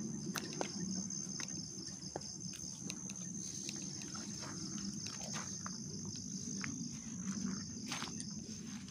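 Crickets chirping in a high, steady, evenly pulsing chorus, with scattered light clicks and knocks and a low background rumble underneath.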